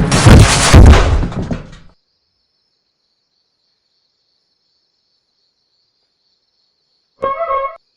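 A loud crash with breaking noise that dies away about two seconds in, then silence, then a brief pitched tone near the end.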